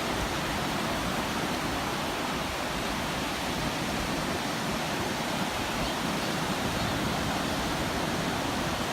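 Ocean surf breaking and washing ashore in a steady, continuous rush, the waves coming in bigger as the tide rises.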